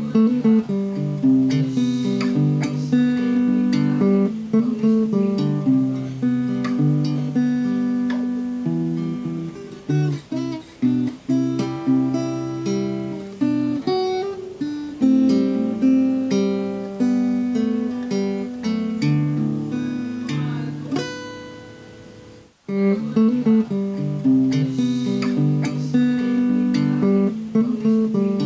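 Background music: an acoustic guitar instrumental of plucked and strummed notes. It fades out about 22 seconds in and starts again a moment later.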